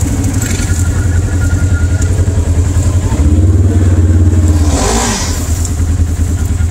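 Polaris RZR side-by-side engine idling with a steady low throb. About five seconds in, a short sound slides down in pitch over the engine.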